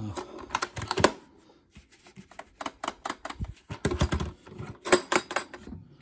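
Spring-loaded metal draw latches on a 12-volt car fridge being unclipped and the lid opened: several quick clusters of sharp metallic clicks and clacks.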